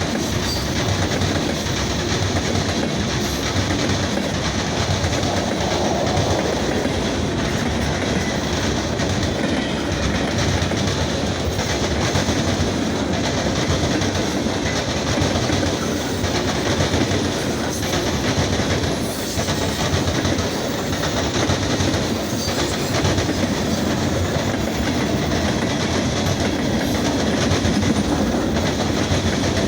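Norfolk Southern freight train's cars rolling past steadily, a continuous rumble of steel wheels on the rails.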